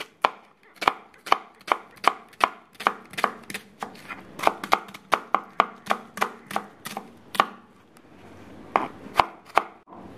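Kitchen knife slicing a red onion on a plastic cutting board: a steady run of sharp knocks, each blade striking the board, about three a second. They pause about eight seconds in, then a few more cuts follow.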